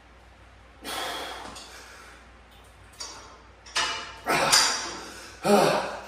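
A man's forced exhalations and straining grunts during reps of a heavy incline dumbbell press, a burst of breath with each rep, getting louder over the last few reps.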